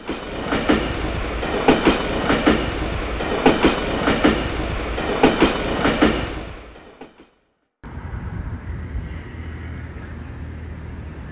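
Train wheels clattering over rail joints: pairs of sharp clacks, about two pairs every two seconds, over a steady rumble, fading out about seven seconds in. After a short silence a quieter, steady low hum takes over.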